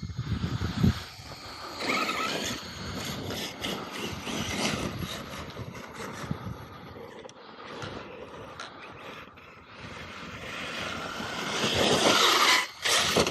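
Electric RC monster truck driving over dirt and gravel, its motor whine and tyre noise swelling as it speeds up in the last few seconds.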